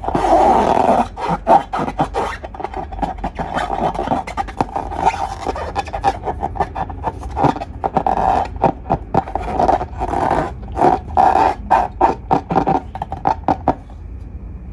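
Slime being squeezed and worked by hand: wet squelching with many quick crackling pops, which stops about a second before the end.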